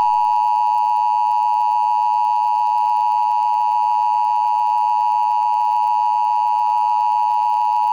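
Emergency Alert System attention signal: two steady tones sounding together as one harsh alarm tone, held for about eight seconds and cutting off abruptly. It follows the alert's data header and warns that the spoken alert message is about to begin.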